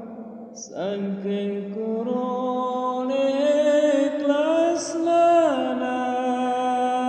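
A man's voice chanting one long, ornamented phrase of mosque devotional chant: held notes that step up and bend, starting about a second in and sliding down at the end.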